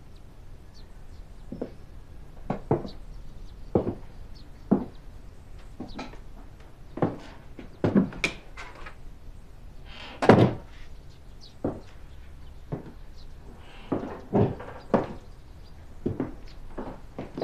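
A door being handled and footsteps on a hard floor: a string of separate knocks and thuds, unevenly spaced, the loudest about ten seconds in.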